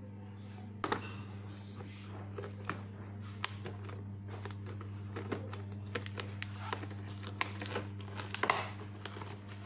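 Packing tape on a cardboard laptop box being slit and torn with the tip of a pen: repeated scratching, crinkling and tearing, loudest near the end, over a steady low hum.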